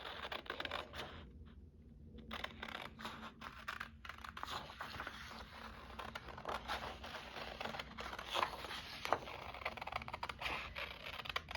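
Scissors snipping around a circle for a craft project, with light scraping and rustling of the material being handled.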